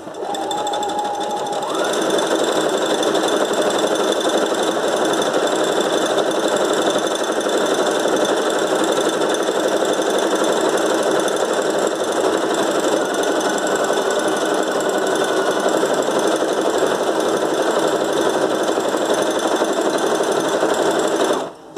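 Brother FS101 computerized sewing machine sewing a decorative flower stitch. It starts slowly, picks up speed about two seconds in, runs fast and steady, and stops near the end.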